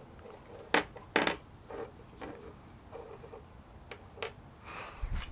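Long metal engine studs clinking against each other and tapping on a wooden tabletop as they are handled: a few sharp metallic clicks, the two loudest about a second in, fainter ones later, and a low rumble near the end.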